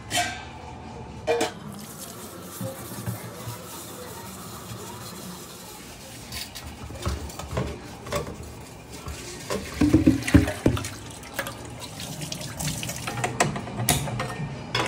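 Tap water running at a sink while a 15-litre stainless steel cookpot and its lid are washed, with scattered metal clinks and clanks; the loudest clanks come about two-thirds of the way through.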